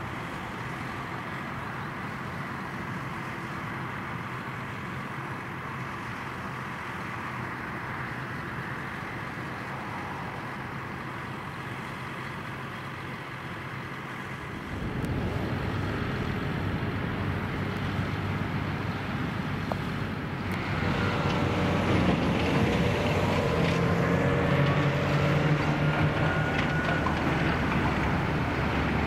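Diesel farm machinery running steadily at a distance: a Claas Jaguar 970 forage harvester and its attendant tractor chopping grass silage into a trailer. About halfway it gets louder, and later a John Deere tractor's diesel engine runs close and loud, its pitch shifting slightly as it tows a silage trailer past.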